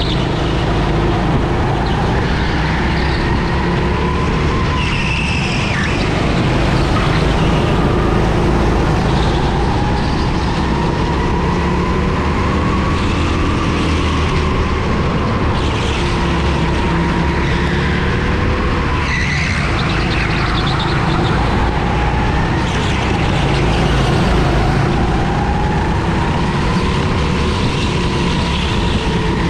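Go-kart engine heard from on board during a race. Its pitch climbs and drops over and over as the kart speeds up and slows through the corners.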